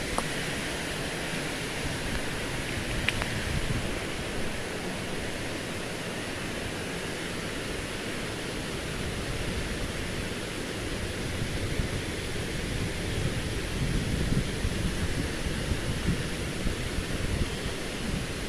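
Wind on the microphone: a steady hiss with an uneven low rumble, a little stronger in the second half.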